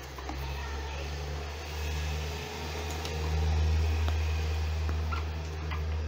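A low rumble that swells and fades, loudest about midway, over faint clicks of a vacuum cleaner's power-cable wires and plastic housing being handled.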